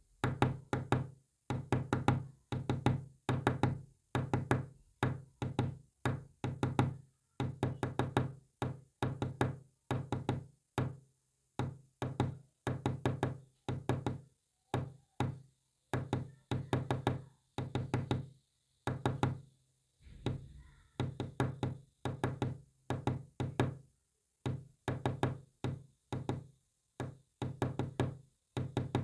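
Rapid knocks in short clustered runs with brief pauses between them, tapped out as Morse code.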